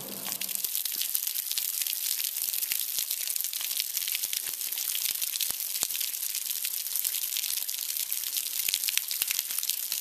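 Small waterfall splashing onto wet sandstone: a steady high hiss full of small spatters.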